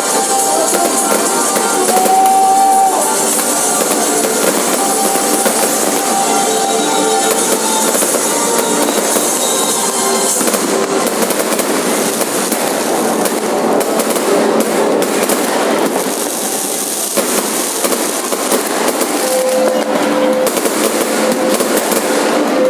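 Fireworks crackling and popping in a dense, continuous barrage, with music playing underneath.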